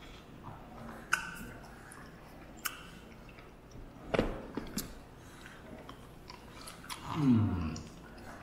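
Close-up eating sounds: chewing and biting, with scattered small smacks and clicks. Near the end comes a short vocal sound that falls steeply in pitch.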